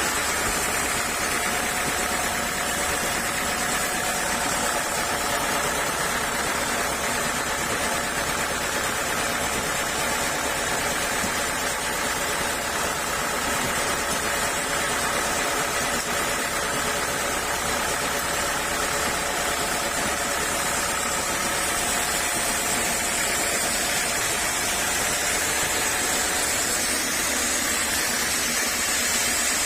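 Sawmill machine running steadily, an even mechanical drone with several steady tones that holds at one level throughout.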